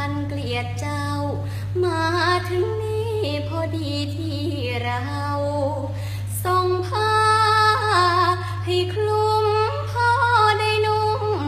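A young girl singing a Thai luk thung song unaccompanied, with long held notes that waver in pitch. A steady low hum runs underneath.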